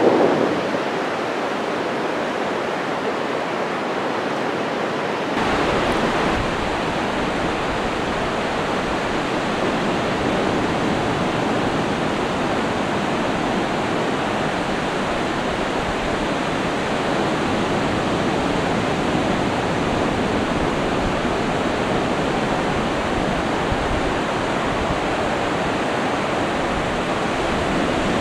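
Surf breaking on a sandy beach: a steady rushing wash of waves that becomes fuller and a little louder about five seconds in.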